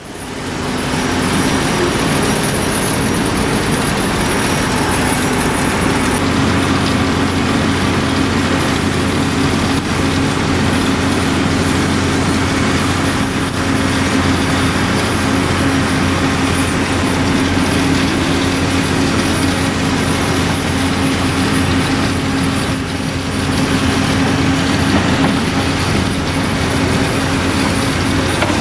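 Daewoo 255 LC-V hydraulic crawler excavator's diesel engine running steadily under working load as it loads soil into a dump truck, with a constant drone.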